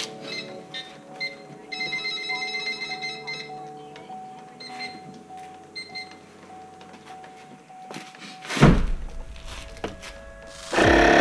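Background music with repeating high notes, a loud knock a little over eight seconds in, then a loud, steady motor noise that starts suddenly near the end.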